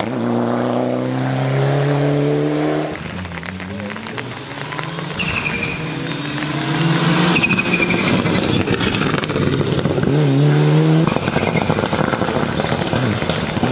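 Mitsubishi Lancer Evolution IX rally car's turbocharged four-cylinder engine accelerating hard along a special stage. The engine note climbs and drops back repeatedly as it shifts up, across several separate passes, with a brief high squeal midway.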